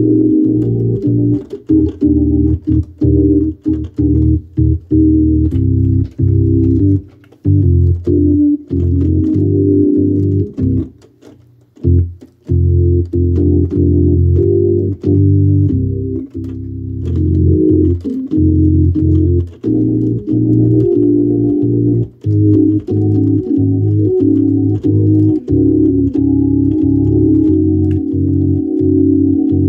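Hammond organ played live: held chords over low bass notes, cut off and struck again in quick, choppy rhythm, with a short break about eleven seconds in.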